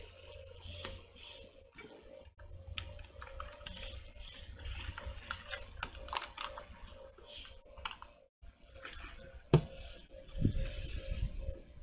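Packaging and parts being handled during unboxing: crinkling, rustling and small clicks, with a sharper knock about ten seconds in.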